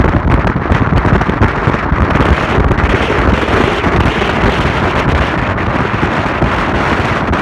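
Wind buffeting the microphone: a loud, uneven rushing rumble, deepest in the bass, with no clear tone or rhythm.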